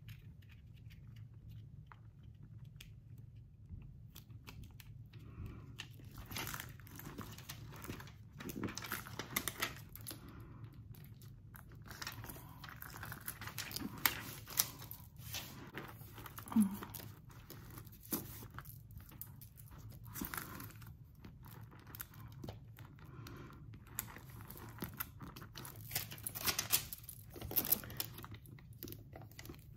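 Faint crinkling and rustling of a clear plastic sticker-application film as fingers handle it and press it down onto a handbag's metal lock, with scattered small clicks and taps.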